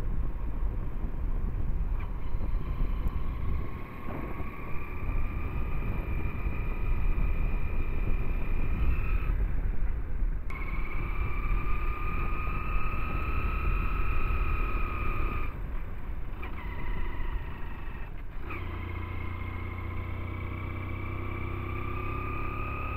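Hero Splendor 100 cc single-cylinder four-stroke motorcycle under way, the engine running with a steady low rumble of wind and road noise on a helmet-mounted microphone. A high whine rises slowly with speed and breaks off three times, once about halfway through, again a few seconds later and again near the end, after which a steadier low engine hum comes up.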